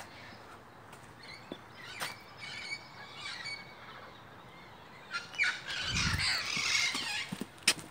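Wild Amazon parrots squawking: a few scattered calls at first, then a louder run of harsh calls from about five seconds in. A low thump sounds about six seconds in.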